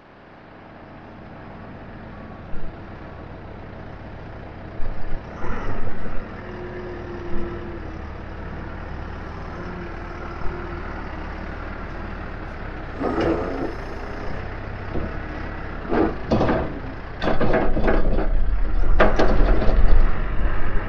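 Caterpillar 416 backhoe loader's diesel engine running under load as it lifts a bucket of feed, with several sharp knocks and clatters. The engine grows louder and deeper in the last few seconds as the loader arm raises the bucket.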